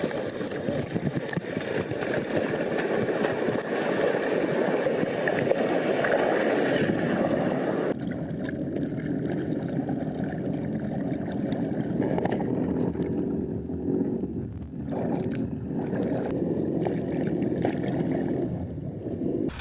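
Ocean surf and splashing water as waves break and churn. About eight seconds in the sound turns duller, with less hiss.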